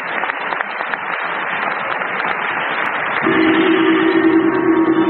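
Audience applauding, then about three seconds in a steady held musical note begins and the music starts.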